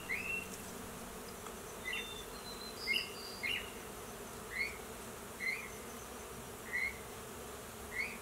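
Steady buzzing hum of a colony of giant honeybees clustered on their open comb in a tree. A bird calls over it with short chirps about once a second.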